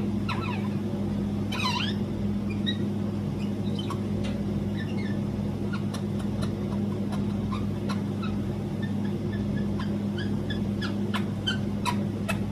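Indian ringneck parakeet chirping and muttering softly in her sleep, with one louder warbling call about two seconds in and a few sharp clicks near the end, over a steady low hum.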